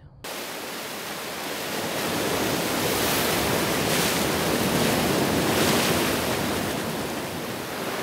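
Ocean waves washing against the rocks of a harbour jetty on both sides, a dense rushing wash that swells in the middle and eases a little near the end.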